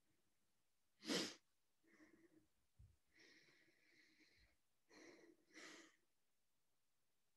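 Near silence with one short sharp burst of noise about a second in, then a few faint breathy huffs and exhalations, like heavy breathing during star jumps.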